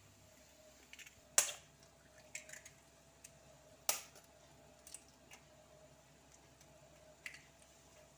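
A few sharp taps and clicks, the two loudest about a second and a half and four seconds in, as a spoon strikes raw eggs to crack their shells open over a wok of curry broth.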